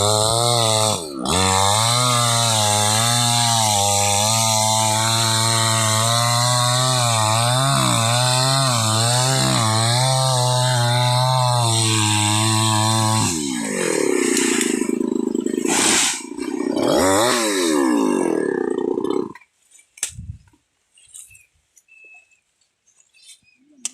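Chainsaw cutting a palm tree, running steadily with a short dip about a second in. About 13 s in it revs higher, rising and falling a few times, then cuts off about 19 s in.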